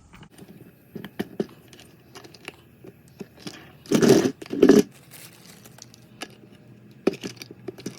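Caster wheels being pressed into the plastic base of a wet/dry shop vacuum: scattered plastic clicks and knocks, with two louder rattling bursts about halfway through.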